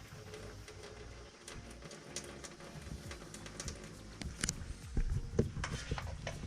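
Kitchen handling noises: scattered light clicks and taps of pans and utensils over a low rumble, growing busier in the second half.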